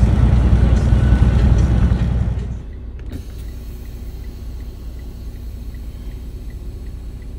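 Semi truck on the move: loud road and engine rumble for the first two and a half seconds, then a sudden drop to a quieter steady engine hum inside the cab, with a faint regular ticking about twice a second.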